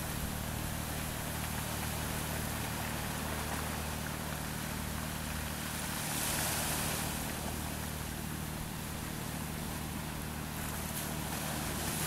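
Small ocean waves washing against shoreline rocks, a steady wash of surf that swells briefly about six seconds in, with a steady low hum underneath.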